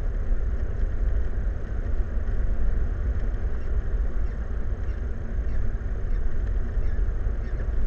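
Steady low rumbling noise, like wind on the microphone or distant machinery, with faint short high-pitched calls scattered through it.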